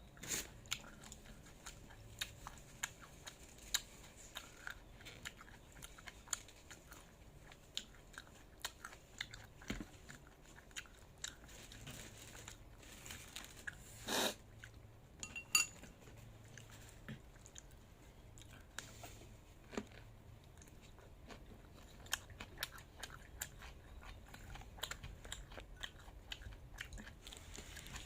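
A person chewing and biting crunchy food close to the microphone, with many short crunches at an irregular pace and a louder bite about halfway through.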